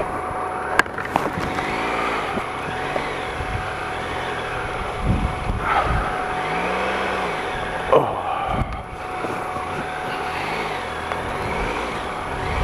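Triumph Tiger Explorer XCa's 1215cc three-cylinder engine pulling at low speed, its revs rising and falling again and again as the clutch is fed in and out for grip in deep muddy ruts. A few sharp knocks come through, about a second in and again near six and eight seconds.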